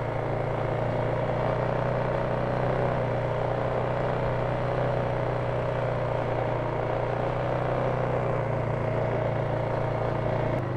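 Polaris Sportsman 570 ATV's single-cylinder engine running at a steady pace while riding, a constant drone that eases slightly near the end.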